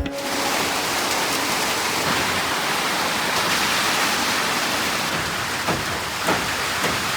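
Heavy rain falling steadily, an even hiss of water, with a few sharper splashes near the end.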